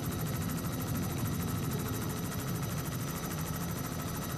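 Helicopter engine and rotor noise heard from on board: a steady drone with a fast, even pulsing and a couple of steady high whines.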